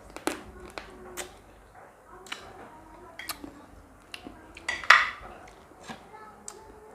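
Dishes and eating utensils clinking and knocking during a meal: a scattering of sharp clicks, the loudest one about five seconds in.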